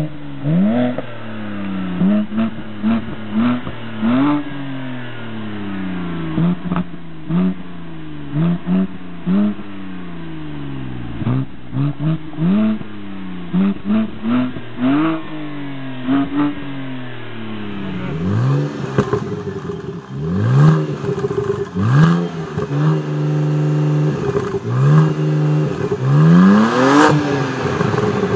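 BMW Z4 sDrive23i's straight-six exhaust, the car standing still, revved over and over in short blips, the pitch rising and falling about once a second. About 18 s in it changes to a BMW Z4 35i's exhaust: sharper revs with a short spell of steady idle between them and a few sharp cracks.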